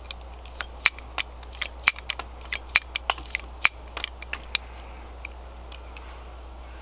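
Heritage Rough Rider single-action .22 revolver with its hammer at half cock, its cylinder clicking as it is turned by hand to unload spent .22 Magnum cases. The clicks are sharp and irregular, two or three a second, and thin out to a few faint ticks about four and a half seconds in.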